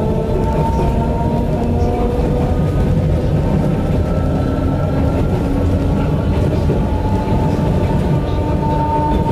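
Yokkaichi Asunarou Railway 260 series electric train running along the track, heard from its cab: a steady rumble of wheels on rail with several held tones of motor whine above it that drift slightly in pitch.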